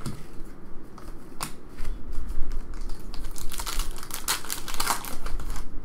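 A trading card pack's foil wrapper crinkling and tearing as it is ripped open by hand, with dense crackling from about two seconds in.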